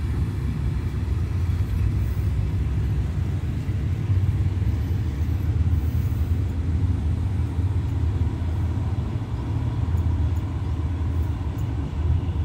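Departing passenger train hauled by a diesel-electric locomotive, a steady low rumble of the engine and wheels on the rails as it pulls away.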